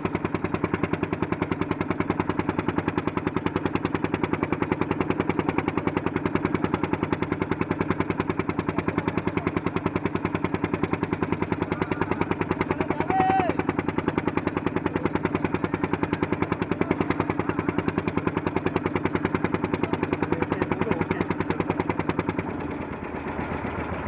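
Motor boat's engine running with a fast, even chugging. A brief high tone sounds about halfway through, and near the end the engine eases off and the chugging gets quieter.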